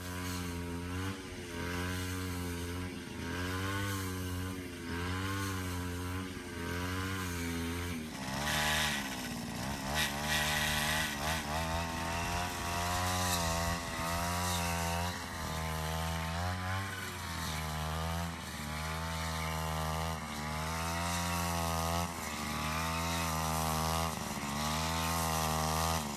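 Small two-stroke engine running steadily, its pitch wavering up and down about once a second, with a rougher, noisier stretch about eight to ten seconds in.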